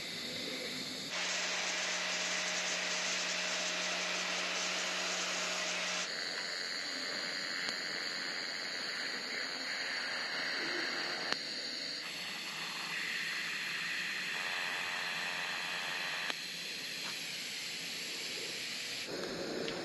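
Steady hiss of a welding torch working metal, changing abruptly in tone every few seconds.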